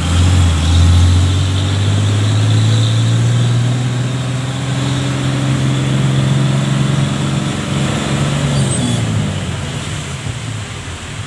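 A large road vehicle's engine hum, rising slightly in pitch as it pulls along and then fading away after about nine seconds. Under it is a steady hiss of storm wind and heavy rain.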